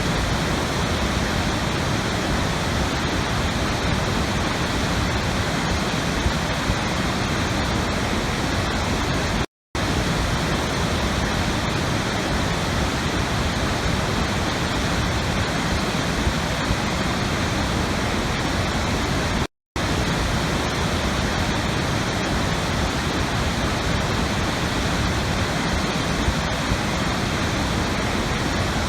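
Steady rushing water, an even hiss across all pitches. It cuts out to silence for an instant twice, about ten seconds apart, where a looped recording restarts.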